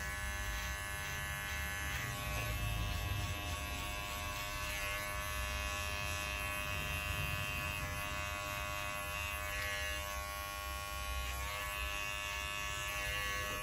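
Corded electric hair clippers buzzing steadily as they cut short hair around the ear and nape over a comb. The tone shifts a little now and then as the blades take the hair.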